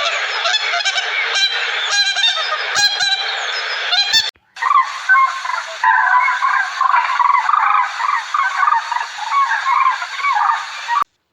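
A flock of birds calling over one another, with many overlapping calls. The sound cuts off abruptly about four seconds in, and a second flock recording of dense chattering calls follows.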